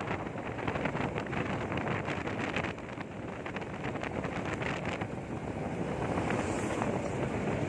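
Wind rushing and buffeting over a phone's microphone on a moving motorcycle, an uneven rumbling rush with rapid gusty flutters.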